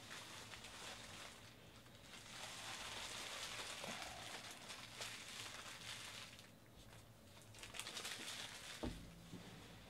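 Foil trading-card pack wrappers crinkling as they are handled and crumpled, in a longer stretch of rustling from about two to six seconds in and a shorter one near the end, with a soft knock just before the end.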